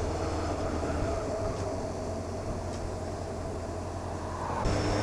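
Motorcycle engine running at a steady, easy cruise with road and wind noise, heard from on board the bike; the engine note gets a little louder near the end as the throttle opens.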